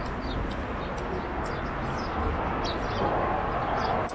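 Small birds chirping repeatedly over a steady rumble of city traffic.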